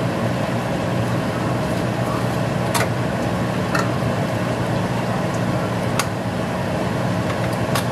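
A small spice jar of parsley being opened and shaken over the frying pan, giving a few short sharp clicks over a steady hum and hiss.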